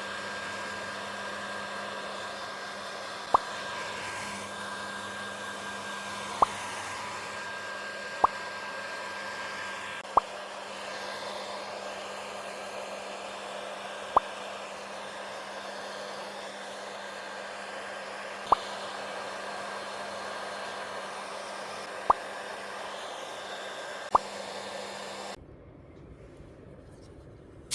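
Hair dryer running steadily with a low hum, broken every few seconds by a short sharp pop. The dryer cuts off a couple of seconds before the end.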